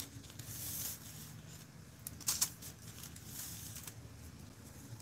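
Fine glitter shaken from a shaker-top bottle onto a tumbler: a soft rattling hiss in three short bursts, with a couple of sharp taps about two seconds in.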